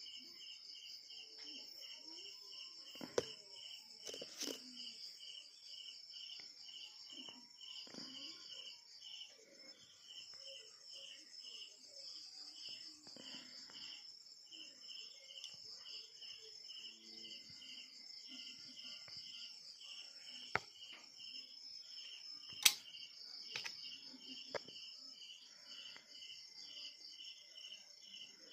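Crickets chirping steadily, about three pulses a second, with a handful of sharp metal clicks from a homemade speargun front trigger being worked by hand, the loudest about two-thirds of the way through.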